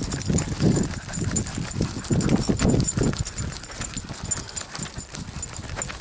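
Rubbing and bumping of an action camera strapped to a walking beagle's harness: uneven low thumps with each stride, with fine ticks over them.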